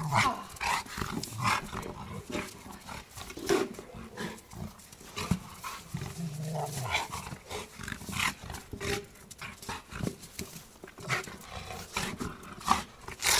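Rottweiler playing with a car tyre: short growling and grunting noises in irregular bursts, with knocks and scuffs as the tyre and its paws hit the snowy ground.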